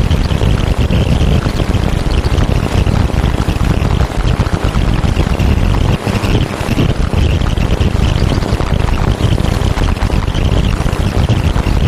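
Steady, loud rumbling and hissing noise with a rough, flickering texture and no clear melody: the electronic 'energy sound' track said to be produced from the painting by a Garyaev matrix.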